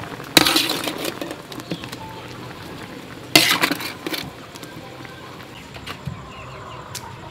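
A metal utensil scraping and clattering in a large steel wok as steamed sweet potatoes are lifted out into a bamboo basket. Two short loud bursts of scraping come about half a second in and again about three and a half seconds in, followed by faint clinks.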